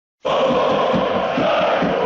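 Large football crowd in a stadium stand chanting together, a loud dense mass of voices that cuts in abruptly about a quarter second in.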